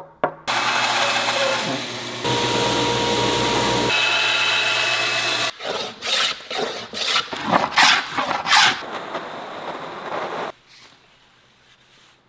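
Woodworking tools on wood in quick succession: first a power tool running steadily with a whine, then a run of uneven hand strokes scraping the wood. The sound changes abruptly several times and drops to a low level near the end.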